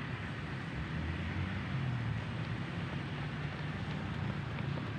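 Steady low rumble of vehicle traffic, with no distinct events.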